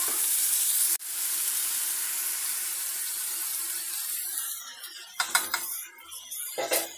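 Chopped onions and tomatoes sizzling in hot oil in a pan, a steady hiss that dies down about four seconds in. A few short clatters follow near the end.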